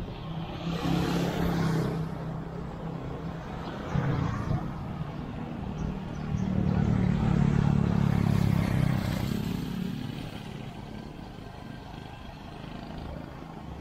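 Road traffic heard from a riding e-bike: motor vehicles pass, one briefly about a second in and a louder engine that swells and fades between about six and ten seconds, over a steady low rumble.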